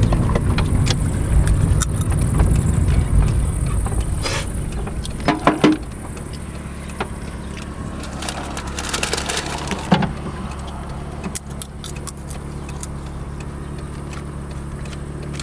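Car running, heard from inside the cabin: loud engine and road rumble while driving, which dies down about six seconds in as the car stops. The engine then idles steadily, with a few short clicks and knocks inside the car.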